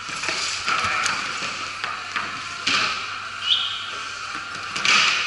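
Several knocks and scrapes of luggage cases being handled on a concrete floor, with a short high squeak about three and a half seconds in.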